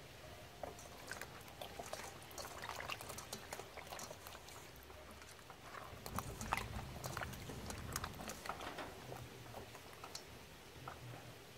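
Straw mushrooms being stirred and rubbed by hand in a bowl of water: irregular sloshing and splashing with many small wet clicks and knocks, busiest from about six to nine seconds in.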